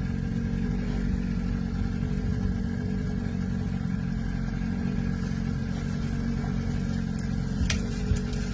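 Boat engine running steadily at trolling speed, with a low, even drone and a couple of sharp clicks near the end.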